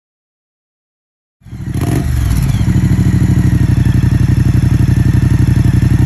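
Moto Guzzi V100 Stelvio's 1042 cc V-twin, breathing through a Mistral Avion X aftermarket exhaust, starts about a second and a half in and settles into a steady idle with an even, lumpy pulse.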